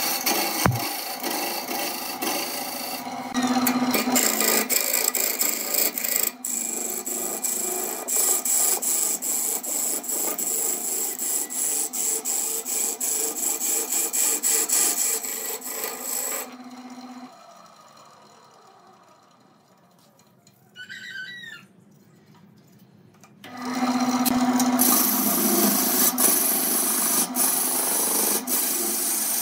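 Gouge cutting a spinning glued-up wood blank on a lathe: a steady rough scraping packed with fine ticks as shavings peel off. It dies away to near quiet for a few seconds past the middle, then the cutting starts again.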